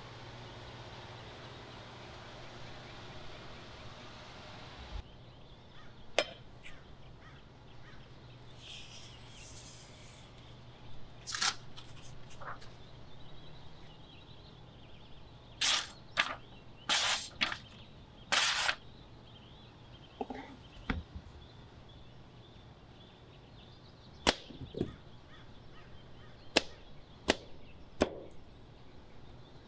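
A steady hiss that cuts off about five seconds in, then scattered sharp cracks and knocks, with a quick run of four short, harsh strikes about halfway through.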